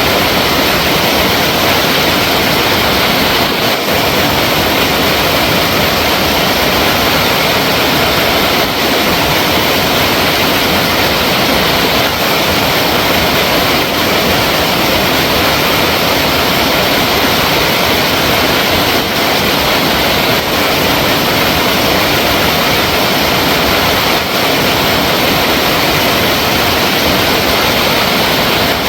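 Flowing water running steadily, a loud, even wash of sound with no breaks.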